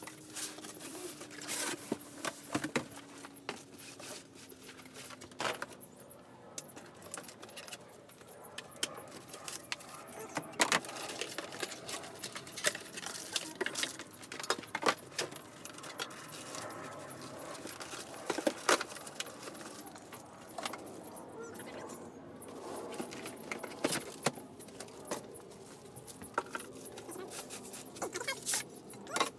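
Ooni Koda pizza oven being unboxed and unwrapped: packaging rustling, with many sharp clicks, knocks and metallic clinks as parts are handled and set down.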